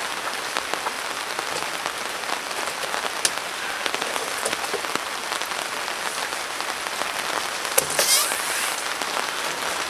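Steady rain falling on a tarp and wet gravel. Scattered clicks come from the metal-framed folding cot being handled. About eight seconds in, as the cot is tipped upright, there is a sharp knock and then a short scrape.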